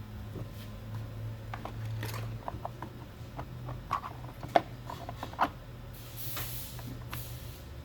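Clicks, knocks and small rattles of a chainsaw being handled and readied, then two short rasping whooshes near the end; the engine is not yet running.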